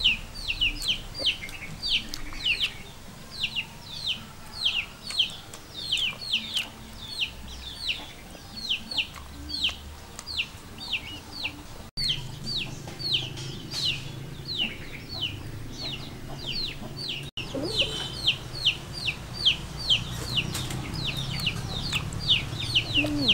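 Young chickens peeping continuously: short, high cheeps that fall in pitch, about two to three a second.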